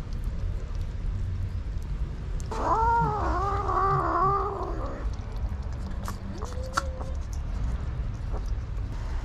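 A kitten's long, wavering cry about two and a half seconds in, then a shorter rising call near seven seconds, with a few faint clicks over a steady low rumble.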